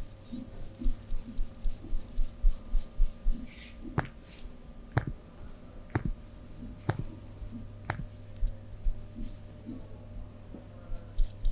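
Hands massaging a body: a run of quick soft taps on skin, then five sharp clicks about a second apart midway, and more soft taps near the end.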